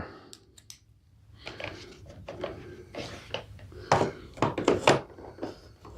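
Handling noises from working on a lawn mower's underside: scattered light knocks, taps and scraping, with a cluster of sharper knocks about four to five seconds in.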